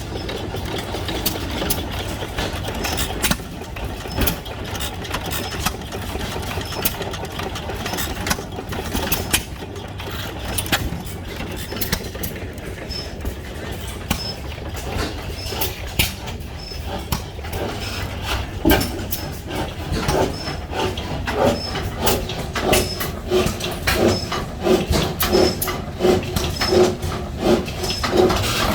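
Hit-and-miss stationary gas engines running, with irregular sharp exhaust pops over a steady mechanical clatter. About two-thirds of the way in, a regular beat of roughly one and a half strokes a second grows louder.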